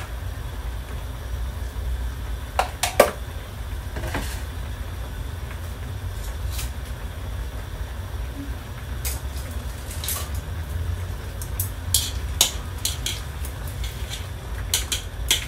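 Kitchen utensils clicking and knocking against a steel wok and containers over a steady low rumble, a few scattered taps at first and a busier run of clicks near the end as chopsticks stir the noodles in the wok.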